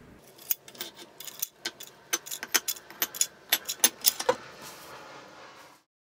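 Metal lever door handle and its latch rattling in a quick, irregular run of sharp clicks for about four seconds, with a string tied to the handle. The audio cuts off just before the end.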